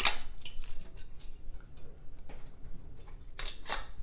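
Black plastic plaster guard being unclipped and pulled off a Delta MultiChoice brass rough-in shower valve: a sharp click at the start, then scattered small plastic clicks and rattles, with a quick pair near the end.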